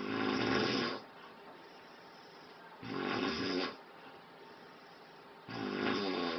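A person snoring in their sleep: three loud snores, each about a second long, coming roughly every three seconds with quiet breathing between.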